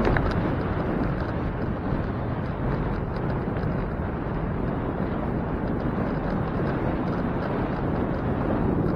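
Wind rushing over the microphone of a moving bicycle rider, a steady low rush with road noise underneath.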